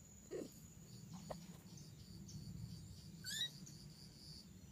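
A quiet background with one brief, high-pitched call that sweeps upward, about three seconds in, and a few faint soft sounds in the first second and a half.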